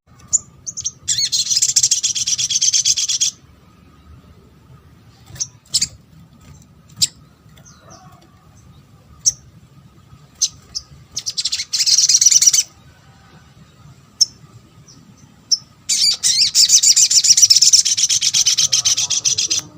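Sogon (sogok ontong), a small sunbird, singing in long bursts of fast, high chattering trills, three in all, with single sharp chirps between them. It is the lively 'gacor' song used as a lure (pancingan) to set other sogon calling in reply.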